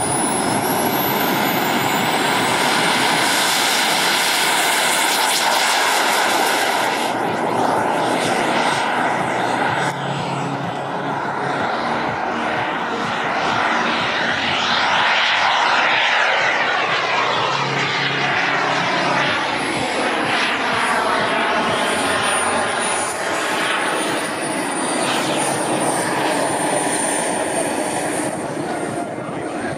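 Twin kerosene turbine engines of a large-scale Skymaster F/A-18 Hornet RC jet in flight: a steady rushing roar with a thin high whine. About halfway through it passes close by, and the pitch sweeps down as it goes.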